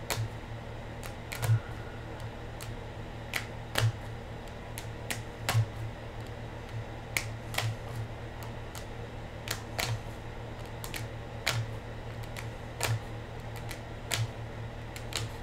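A run of sharp clicks and taps at irregular intervals, roughly one a second, over a steady low hum.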